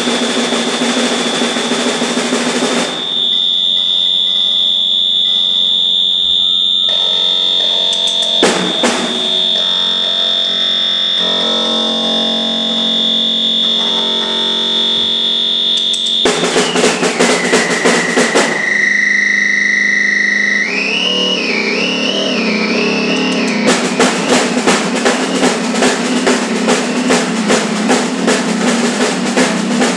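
Improvised noise music: a drum kit played in fast rolls, with a steady high whistling tone. A little past halfway the tone slides down in pitch, holds, then wavers up and down, and the dense drum rolls come back for the last few seconds.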